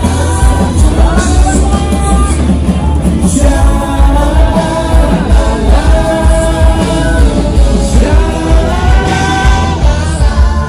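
Rock song played by a full band, with a lead singer's voice over a steady bass and drum beat.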